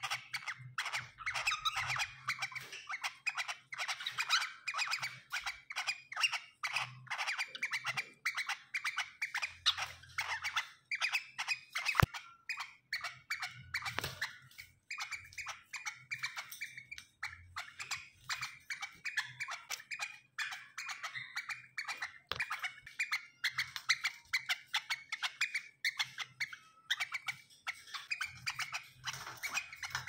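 Cockatiels chirping and squeaking rapidly and almost without pause while mating. There is one sharp click about halfway through.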